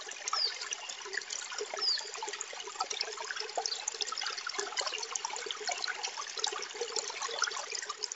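Trickling, bubbling water like a small stream, steady with a dense patter of tiny splashes and a few short high chirps over it. It fades in at the start and fades out near the end, as an intro sound bed.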